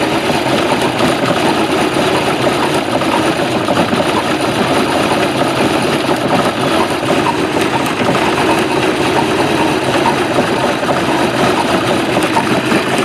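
MerCruiser stern-drive boat engine idling steadily while it warms up, running out of the water on flushing muffs.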